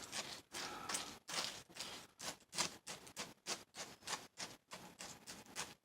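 Close-up crunching of milk-soaked cereal being chewed, a quick run of crackly crunches about four a second.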